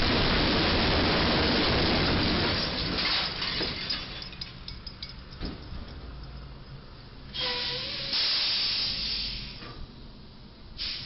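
Semi-trailer's box roof torn open against a low railroad bridge's steel crash beam: a sudden loud crash and scraping for about two and a half seconds, then scattered clinking and rattling of falling debris. About seven seconds in comes a second loud burst of hissing.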